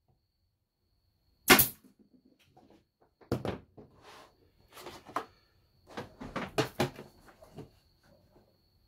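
A pneumatic staple gun fires once about a second and a half in: a single sharp, loud shot driving a staple through a pallet-wood panel. It is followed by a run of irregular wooden knocks and clatter as the tool is set down and loose pallet-wood panels are laid into the door frame.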